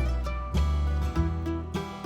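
Background music: an upbeat country-style tune with plucked strings, guitar or banjo, over a steady bass beat.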